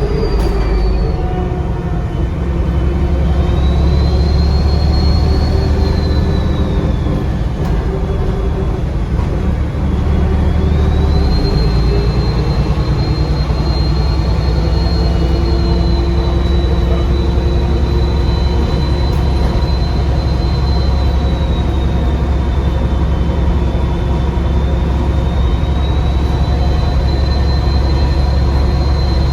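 Bus diesel engine pulling under load, heard from inside the bus, with a loud high turbo whistle over the low engine drone. The whistle climbs, drops away about seven seconds in, then comes back about ten seconds in and holds, sagging slightly near the end before rising again.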